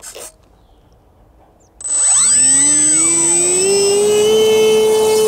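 RC model plane's electric motor and propeller spooling up about two seconds in, rising in pitch and then holding a steady high whine at full throttle for the hand launch.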